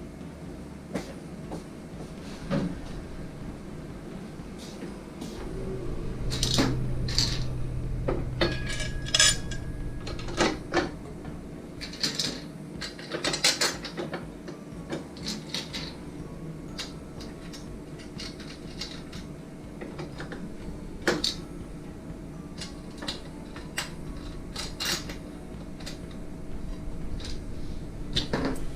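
Metal parts of a Mildrich 250ES meat slicer clinking and knocking as they are handled during disassembly or reassembly, with many scattered sharp clicks, busiest in the middle. A low hum joins for a few seconds in the first third.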